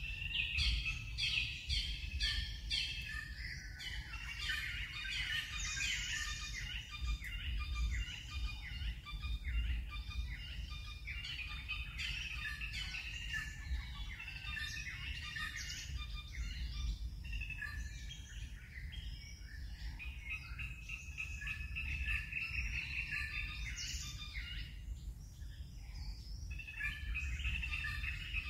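Birds chirping and calling in a busy, overlapping chorus, over a steady low rumble.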